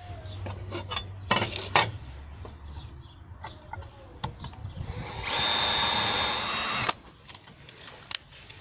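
Cordless drill with a small 3.5 mm bit drilling a pilot hole through steel plate: a burst of steady drilling about five seconds in that lasts about a second and a half and stops abruptly. Before it come a few knocks and clicks.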